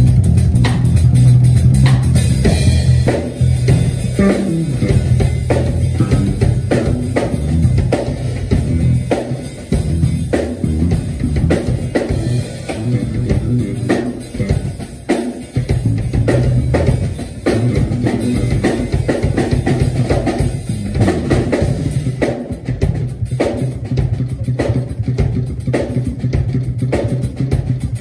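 A Fender Jazz Bass electric bass and a drum kit playing together in a full-band groove, the bass line running low under bass-drum, snare and cymbal hits.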